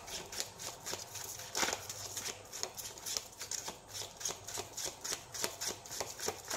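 A tarot deck being shuffled in the hands: a quick, irregular run of soft card slaps and flicks.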